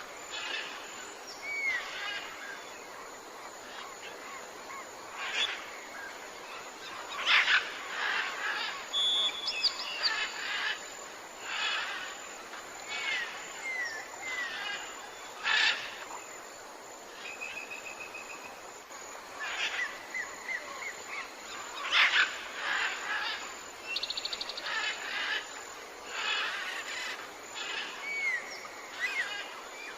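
Tropical forest ambience: many birds chirping and calling over a steady background hiss, with a few short whistled glides and several louder calls scattered through.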